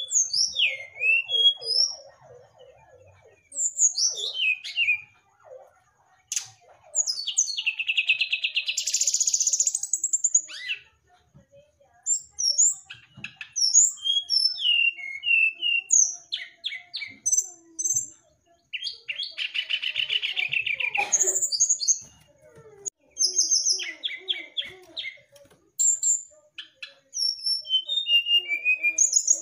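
Brown-chested jungle flycatcher singing: a varied run of short clear whistled notes and slurs, broken twice by a long buzzy rattling trill, once about seven seconds in and again about nineteen seconds in.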